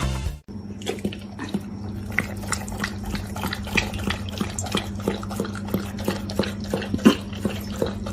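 A dog lapping liquid: a run of quick, irregular wet clicks over a steady low hum.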